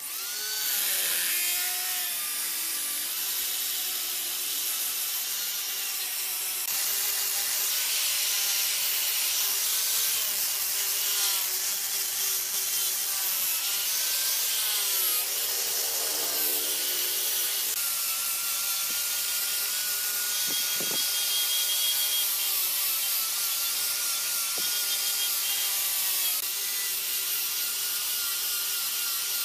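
Angle grinder with a sanding disc running against a wooden vase, sanding the wood. A steady whine sits under a dense abrasive hiss; it starts suddenly and dips in pitch a few times as the disc is pressed into the wood.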